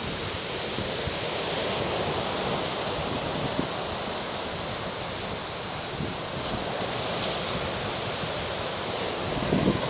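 Steady wind rushing over the microphone, with ocean surf washing on the beach underneath it; a stronger gust buffets the microphone near the end.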